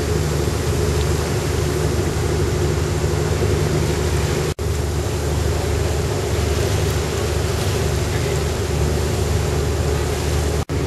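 Boat engine running steadily, heard from aboard, with wind and water rushing over it. It is broken by two split-second gaps, about four and a half seconds in and near the end.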